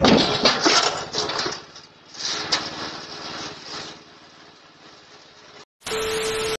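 A garden tiller and a man crash off a pickup's loading ramp onto gravel with a loud clatter, after which the tiller's small engine keeps running at idle. Near the end comes a short burst of TV static with a steady beep.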